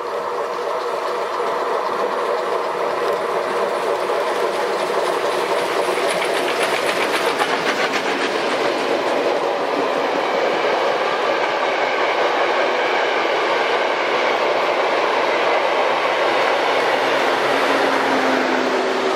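Steam-hauled passenger train passing close by, growing louder over the first couple of seconds and then staying loud. The coaches' wheels clatter over the rail joints, most clearly a few seconds in.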